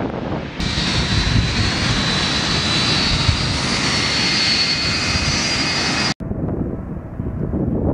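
Boeing 757 jet engines running as the airliner taxis: a steady rumble topped by a high whine of several fan tones. About six seconds in, the sound cuts abruptly to a duller, muffled jet rumble.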